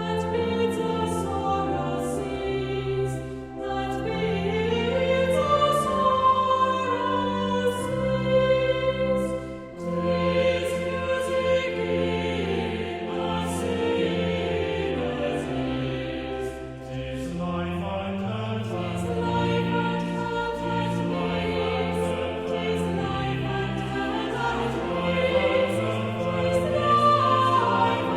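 Choral music: a choir singing in several parts, with long held notes.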